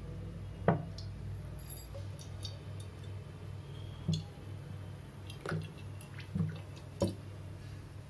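Sesame oil poured in a thin stream into a metal kadai, with a handful of short soft drips and taps scattered through, over a low steady hum.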